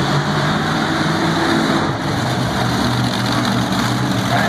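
Monster truck engine running loudly and steadily as the truck is driven around the arena floor, its pitch rising and falling a little with the throttle.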